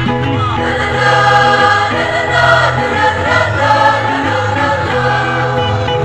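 A school choir singing a Timorese regional song in harmony, with sustained notes over a steady low part.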